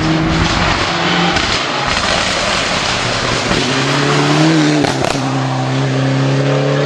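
Rally car at speed on a rallysprint stage, engine running hard with a dense rush of tyre and road noise in the first few seconds. The engine note then holds at a steady high pitch, breaking off briefly about five seconds in, as at a gear change.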